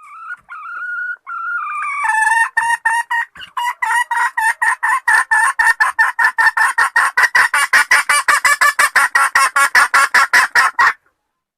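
Hen calling: a drawn-out, wavering call for about two seconds, then a long fast run of repeated clucks, about five a second, that stops suddenly near the end.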